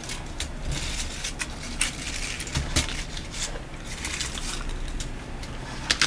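Paper flowers and a twig vine wreath rustling and crackling as they are handled and pushed into place, with irregular small clicks and a sharper click near the end.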